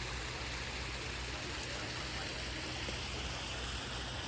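Steady rush of irrigation water running down through rice-terrace channels, with a low rumble underneath.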